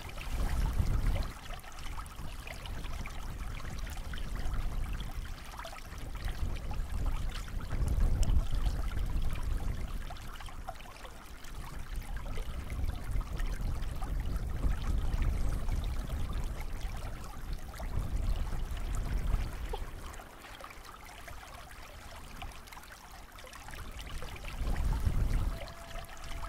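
Swollen river rushing past in high water: a steady wash of flowing water, with deep rumbling surges that swell and fade every few seconds.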